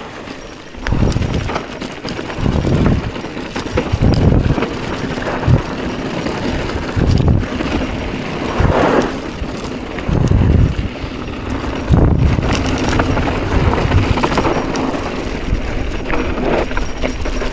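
Mountain bike rolling down a rough dirt singletrack: tyres on loose dirt and the bike rattling and knocking over bumps, with repeated low rumbling surges every second or so.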